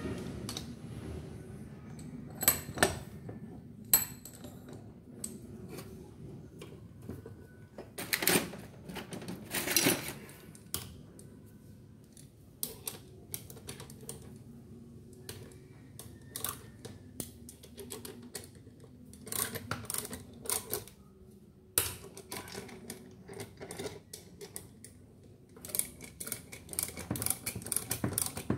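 Irregular metallic clicks, taps and light rattles of hand tools and parts while a rotary hammer drill is taken apart on the bench, with a few sharper knocks and a quick run of small clicks near the end.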